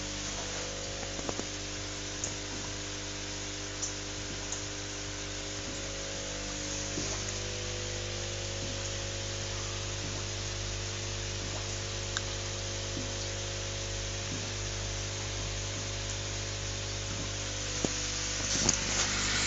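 Aquarium air pump buzzing steadily as it drives the bubbles, with scattered small clicks. Near the end, water splashing at the surface grows louder.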